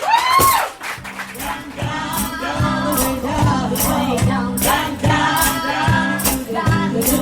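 Vocal trio singing in harmony over a bass line, with hand percussion keeping a steady beat of about two strokes a second. It opens with a voice swooping up and then back down in pitch.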